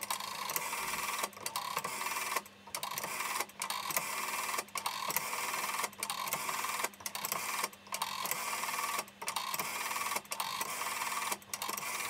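Rotary dial of a 1970s GPO 700-series telephone pulse-dialling a phone number, digit after digit. Each spring return of the dial gives a short mechanical whirr of pulses, with brief breaks about once a second as the next digit is pulled round.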